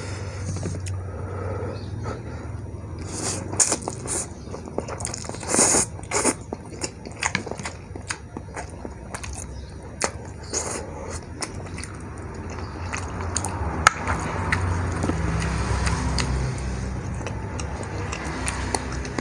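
Close-up eating sounds from a bowl of soupy instant noodles: chewing, with many small wet clicks and a few scrapes, busiest in the first half.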